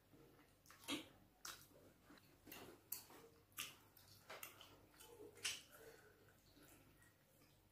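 Faint wet eating sounds from a person eating fufu and bitter leaf soup by hand: soft mouth clicks and smacks while chewing and licking the fingers, coming at irregular intervals.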